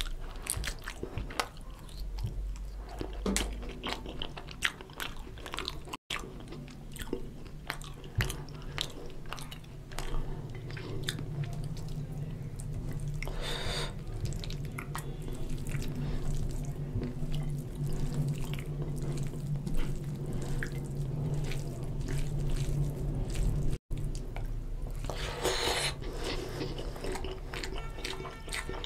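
Close-miked eating by hand: chewing and biting, with wet squishes and sharp clicks as fingers mix basmati rice into oily mutton curry on a steel plate. A steady low hum runs underneath for part of it.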